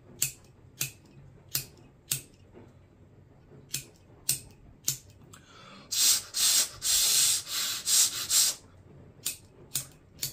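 Bic lighter's spark wheel being struck over and over, sharp single clicks about half a second apart, without catching: the lighter has just come out of half an hour under water. About six seconds in, a louder stretch of hiss-like noise lasts a couple of seconds.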